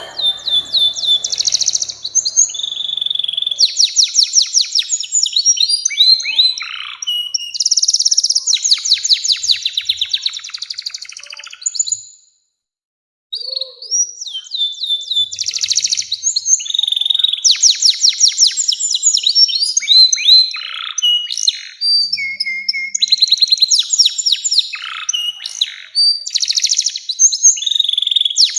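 Domestic canary singing a long song of rapid trills and rolls, one phrase straight after another, with one break of about a second near the middle.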